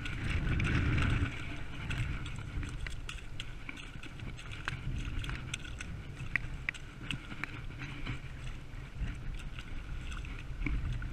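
Wind buffeting the microphone with a low rumble, a little stronger in the first second or so. Scattered light clicks and rustles come from hands handling fishing line and a hooked pike.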